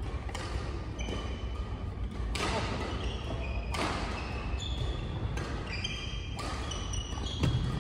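Badminton doubles rally: rackets strike the shuttlecock several times, one to two seconds apart, among short high squeaks of players' shoes on the wooden court floor, echoing in a large sports hall.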